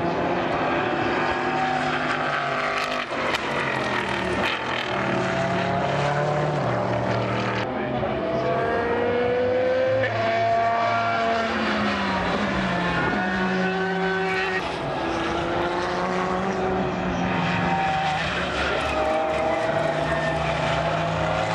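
Endurance race cars, sports prototypes and GT cars, passing one after another at speed. Their engines rise and fall in pitch as each car accelerates, changes gear and goes by.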